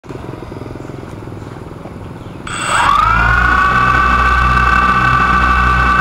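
An engine runs with a low, pulsing rumble. About two and a half seconds in, a steady high whine joins it and the sound becomes much louder.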